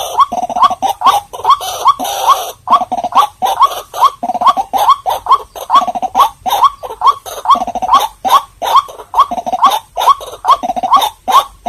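White-breasted waterhen calling: a fast, unbroken series of short notes that each sweep upward, about three a second.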